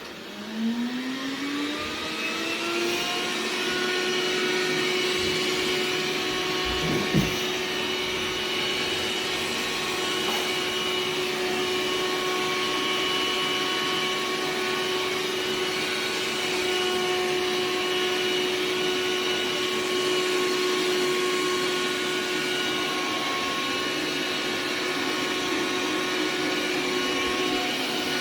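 Suction motor of a Xiaomi X20 Pro robot vacuum system spinning up with a rising whine over the first few seconds, then running steadily with a high hum over a strong rush of air. A single knock comes about seven seconds in.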